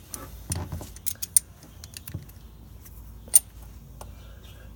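A metal hand tool working a screw out of a car tire: scattered sharp metallic clicks, two of them loud, about a second and a half in and again near three and a half seconds, with a few soft knocks between.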